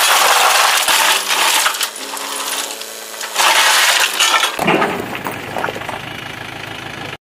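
A load of rubble stone slides out of a tipper lorry's raised bed and clatters onto the pile, a dense rattle of rock striking rock. The rattle thins out about halfway through, leaving the lorry's diesel engine running.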